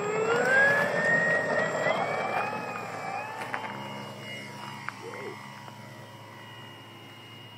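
Radio-controlled P-47 Thunderbolt model airplane's motor and propeller throttling up for the takeoff run. Its whine rises in pitch over the first three seconds or so, then holds steady and fades as the plane climbs away.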